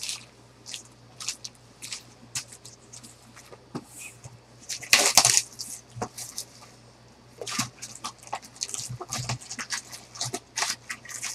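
Foil trading-card packs clicking and rustling as they are handled and stacked, and a cardboard hobby box being handled and opened, with a loud crinkle of plastic shrink-wrap about five seconds in.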